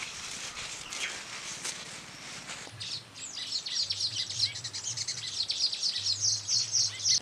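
Footsteps rustling through field plants, then from about three seconds in many small birds chirping rapidly, getting louder near the end.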